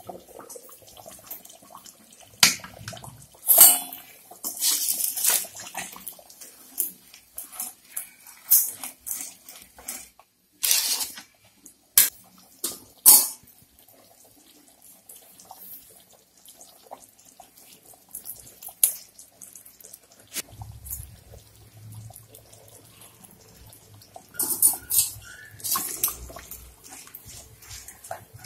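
Metal kitchenware on a kadai of thin curry gravy: a steel lid lifted off, sharp clinks of metal against the pan, and the gravy sloshing as masala is scraped in and stirred with a spoon. A low steady hum comes in past the middle.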